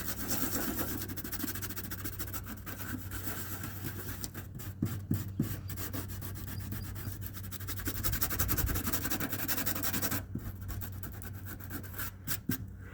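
Folded emery cloth rubbed rapidly back and forth over the steel of a Jeep's hood-latch mount, scouring off dirt buildup and surface rust. There are short pauses about four and a half seconds in and again near ten seconds.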